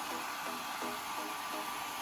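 A steady rushing hiss, like blown air, at an even level, with a thin steady tone in it and faint short musical notes underneath.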